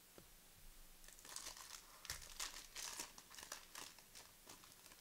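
Foil trading-card pack wrapper being torn open and crinkled by hand: a rapid run of crinkles starting about a second in and lasting about three seconds.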